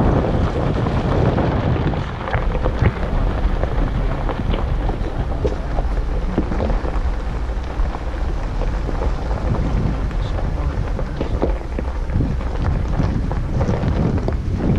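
Wind buffeting the microphone over the low rumble of a Jeep Wrangler Unlimited rolling slowly downhill over a loose, rocky gravel track. Scattered small crackles and ticks come from gravel under the tyres.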